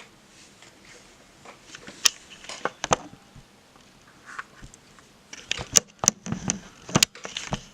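Snow crunching in two bursts of sharp crackles and clicks, the first about two seconds in and the second, longer one from about five and a half seconds in.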